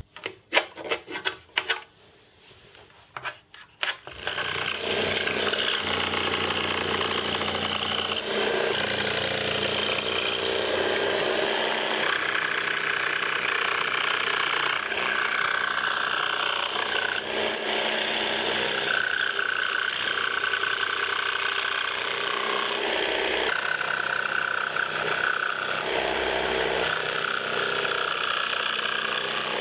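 A few quick ratcheting clicks from trigger bar clamps being tightened, then about four seconds in a power saw starts and runs, cutting through thin plywood, its pitch shifting as the blade takes the load.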